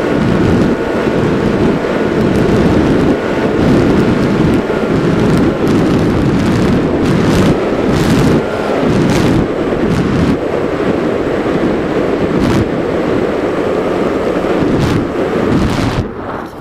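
Heavy wind buffeting on the onboard camera microphone of an RC flying wing in fast, low flight, with a thin steady whine from its electric motor and propeller underneath. The noise drops away near the end.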